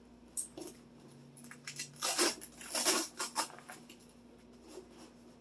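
Bicycle rack parts and tools being handled during disassembly: a run of small clicks, rattles and short scrapes, busiest and loudest in the middle.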